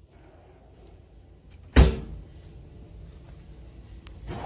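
A steel tool box drawer shutting with a single sharp bang about two seconds in, over a low steady background hum.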